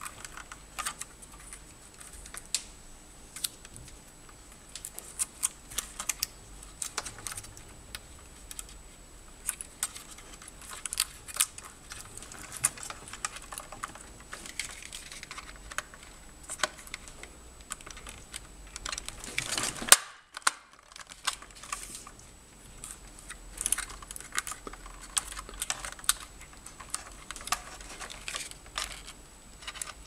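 Punch-down tool seating and trimming twisted-pair wires into the terminals of a network patch panel: a string of irregular sharp clicks and snaps, with one much louder snap about twenty seconds in.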